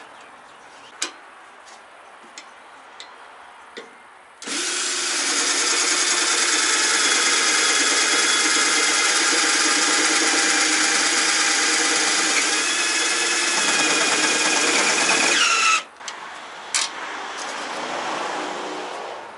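Cordless drill drilling holes in a pickup's tailgate: light clicks of metal hardware being handled, then the drill runs steadily for about eleven seconds and stops suddenly. Near the end it runs again briefly and more softly.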